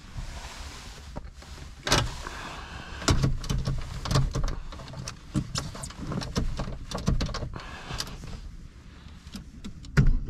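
Handling noises inside a car's cabin: a short hiss, then a scattered run of sharp clicks and knocks. A louder sound with a low rumble sets in just before the end.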